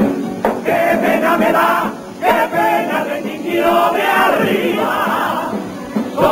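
A Cádiz carnival group singing a chorus together, many voices in unison in phrases broken by short pauses.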